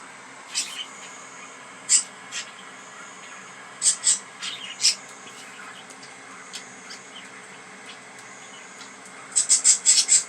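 Pet budgies giving short, high-pitched chirps now and then, with a quick run of several chirps near the end, over a steady faint hiss.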